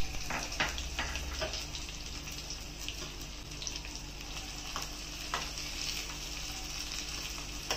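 Chopped garlic cloves, dried red chillies and cumin seeds sizzling steadily in hot ghee in a small steel saucepan. A spoon stirs them, with a few light clicks against the pan.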